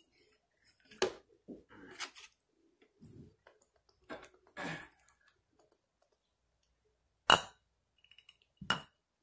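Close-miked sounds of a hot-sauced rotisserie chicken drumstick being torn off and bitten into: scattered sharp clicks and smacks with wet tearing between them. The loudest, sharpest click comes about seven seconds in.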